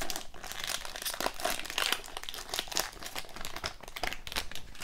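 Shiny plastic wrapper of a hockey card pack crinkling as it is torn open and handled, a dense run of irregular crackles.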